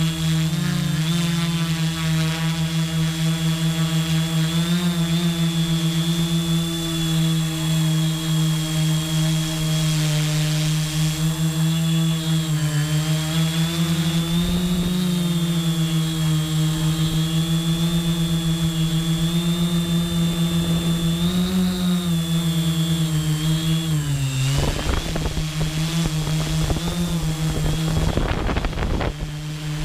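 Quadcopter drone's propellers and motors humming steadily, the pitch wavering a little as the drone manoeuvres, with a thin high whine over it. Near the end, wind buffets the microphone.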